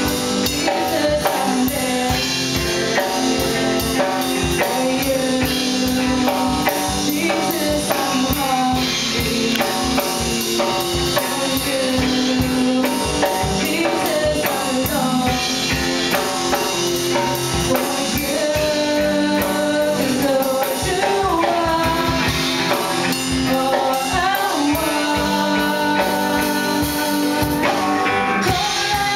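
Live rock-style worship band playing: a drum kit keeping a steady beat under electric guitar, bass guitar and acoustic guitar, with a woman singing lead.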